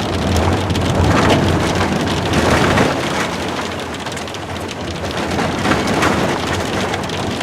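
Inside a vehicle driving a rough, rocky dirt road: a dense, steady clatter and patter over a low rumble from the road and engine.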